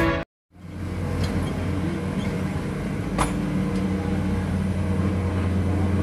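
Heavy diesel machinery engine running steadily with a low drone. It starts after a brief silent gap, and sharp metallic knocks come about a second in and again about three seconds in.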